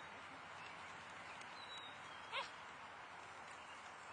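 A puppy gives one short yip about two and a half seconds in, over a faint steady outdoor hiss with a few faint bird chirps.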